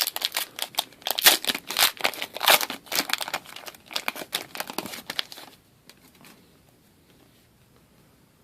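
A trading card pack's wrapper being torn open and crinkled by hand: a dense run of crackles and rips that stops about five and a half seconds in.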